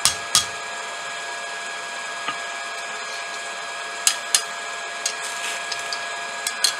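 Hand-forging: hammer blows on steel round stock at the anvil, about three a second, ending half a second in. After that a steady hiss and hum carry on, broken by two sharp metal strikes about four seconds in and two more near the end.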